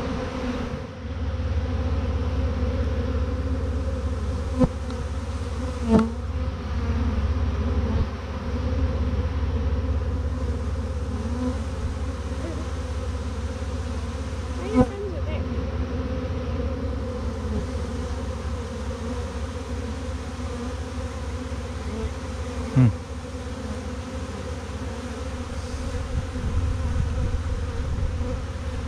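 Steady buzzing of a large honeybee swarm of around 30,000 bees, with four brief knocks along the way.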